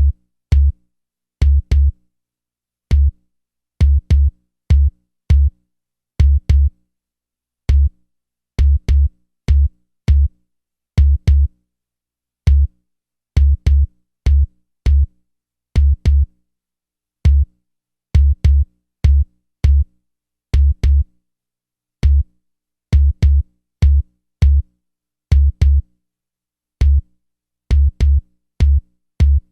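70 Hz bass test signal: short, loud pulses of a 70 Hz tone in a drum-machine-like rhythm, singles and quick pairs about every half second to a second, each starting with a click, with silence between.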